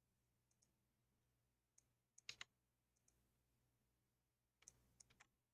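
Faint, scattered clicks of a computer keyboard and mouse over near silence, with a small cluster about two seconds in and another near the end.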